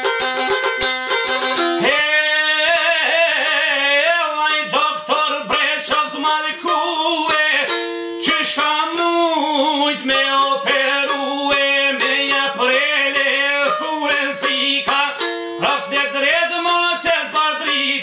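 Çiftelia, the Albanian two-stringed long-necked lute, plucked in quick, steady strokes; about two seconds in, a man's voice comes in singing a folk song over it, with long wavering held notes.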